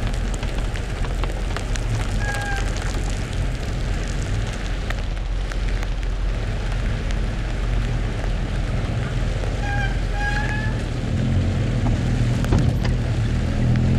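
Steady rain noise over a car's engine and tyres on a wet road, with a few brief squeaks about two and ten seconds in. The engine hum grows louder near the end.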